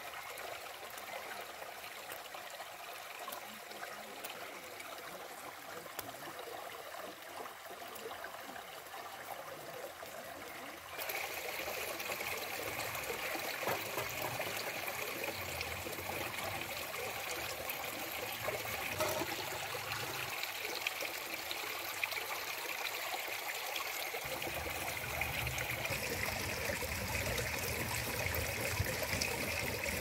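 Running water of a stream, a steady rushing and trickling, which gets louder about eleven seconds in.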